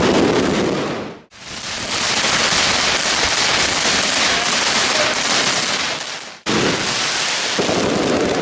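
Fireworks going off in a string of edited clips: a dense crackling hiss of sparks and crackle effects, broken by abrupt cuts about a second in and about six seconds in.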